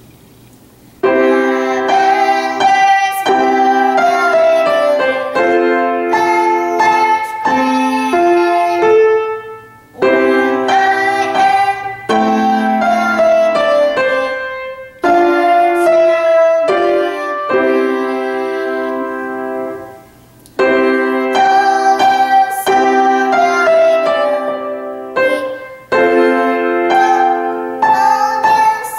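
A child playing a grand piano in phrases separated by short pauses, with her voice singing along at times.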